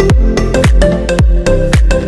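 Background electronic dance music with a steady kick drum on every beat, about two beats a second, under sustained synth notes.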